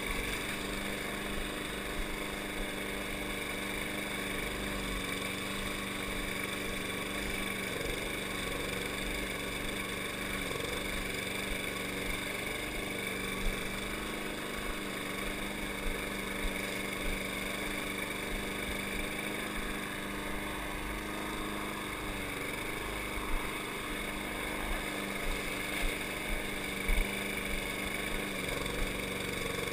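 Walk-behind rotary lawn mower's small single-cylinder engine running steadily while cutting grass, dipping briefly in pitch a few times, with a few short thumps.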